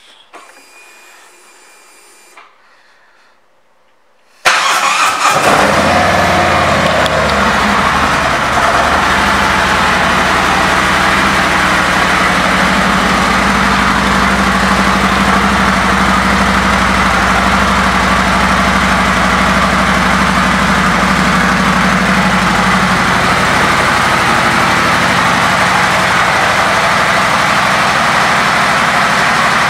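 Near silence for about four seconds, then the 2018 Harley-Davidson Street Glide's Milwaukee-Eight V-twin is suddenly heard running and settles into a steady idle.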